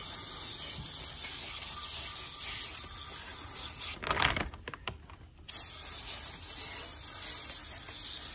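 Aerosol can of foaming coil cleaner spraying in a steady hiss up into a ductless mini-split's blower wheel, with a short break about halfway through before the spray starts again.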